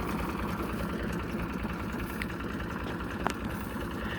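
Zetor 3320 tractor's three-cylinder diesel engine idling with a steady, even beat. A single sharp click comes about three seconds in.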